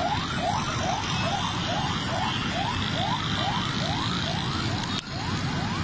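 A siren sounding in quick rising whoops, about four a second, over the steady noise of jammed road traffic; the whoops fade toward the end. A brief click comes just before the end.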